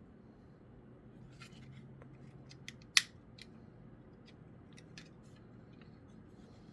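Scattered small clicks and light scrapes of fingers prying at the hood of a die-cast metal model truck, with one sharper click about three seconds in; the hood is fixed and does not open.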